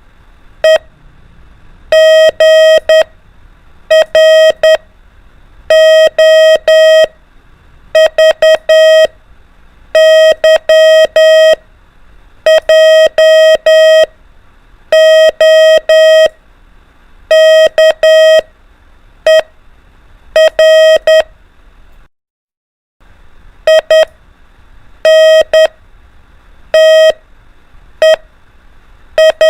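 Morse code (CW) practice tone: one steady mid-pitched beep keyed in dots and dashes, sending a letter about every two seconds, with a short silent break about 22 seconds in.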